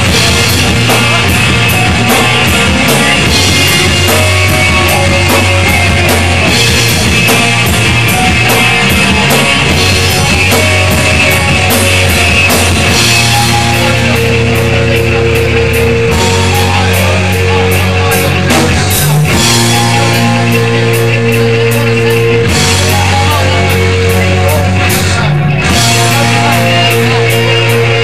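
Live rock band playing loud: electric guitar over held low bass notes and a steady drum-kit beat.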